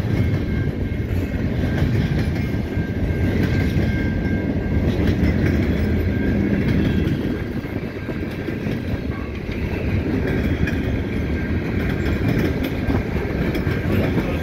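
Freight cars of a passing freight train, gondolas and covered hoppers, rolling by close at hand: a steady rumble of steel wheels on the rails.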